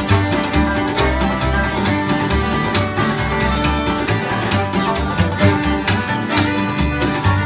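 Bluegrass band playing an instrumental: fiddle over picked guitar, with bass notes on a steady beat.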